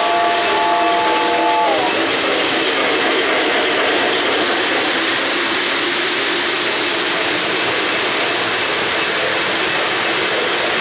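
O-gauge model trains running: a locomotive's sound system blows a multi-tone chord whistle for about the first two seconds, its pitch sagging as it cuts off. After that comes the steady rolling clatter of model freight cars on three-rail track.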